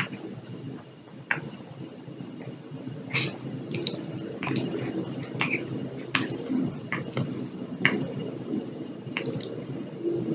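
A miniature pinscher–chihuahua mix and a Pekingese-mix puppy play-mouthing and licking each other: wet mouthing and chewing sounds over a steady low rustle, with about a dozen scattered sharp clicks.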